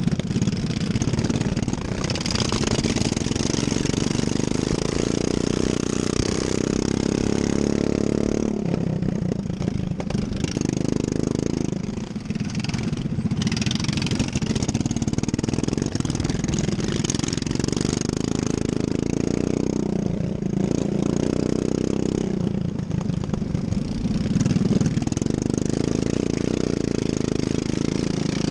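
Racing ride-on lawn mower engine running hard, its pitch rising and falling every few seconds as it is throttled on and off around the track.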